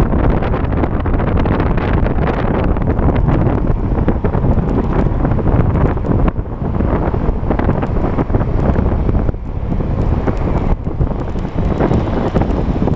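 Wind buffeting the microphone of a camera carried on a moving scooter, with traffic mixed in: a loud, steady rumble that dips briefly a few times.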